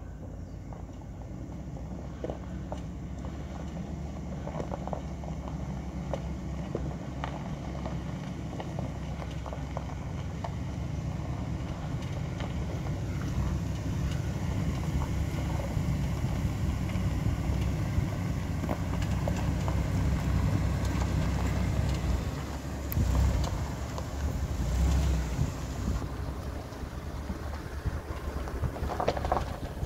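4WD engine running at low speed as the vehicle climbs a dirt track toward the microphone, a steady low rumble that grows louder as it draws near. A few heavy low buffets of wind on the microphone come a little over twenty seconds in.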